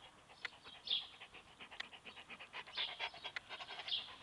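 Black Labrador retriever panting, its breaths coming as hissing puffs about once a second, with light clicks in between.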